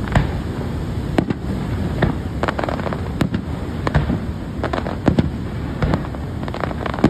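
Fireworks display: aerial shells bursting in sharp bangs, roughly one a second, over a continuous low rumble.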